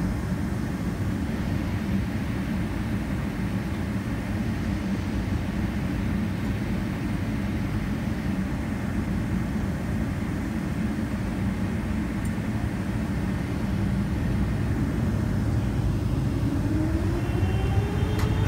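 Inside the cabin of a Boeing 777-300ER taxiing: a steady low rumble of its GE90-115B engines and the rolling airframe. Near the end it grows louder as a whine rises in pitch, the engines spooling up with added thrust.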